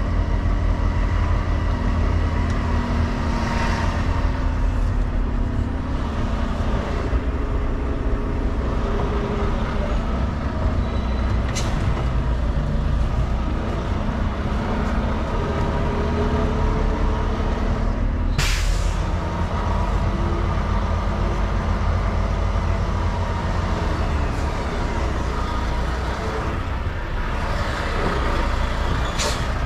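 Semi truck's diesel engine running as the truck is manoeuvred into a parking spot, its pitch shifting now and then. About eighteen and a half seconds in comes a short, sharp hiss of air from the air brakes, with fainter short hisses around eleven seconds and near the end.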